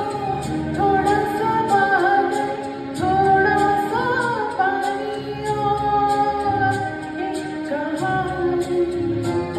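Hindi film song performed live: a gliding sung or played melody over backing music with a steady beat.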